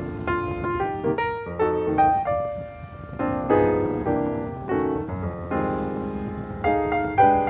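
Background piano music, single notes and chords struck in a steady flowing pattern.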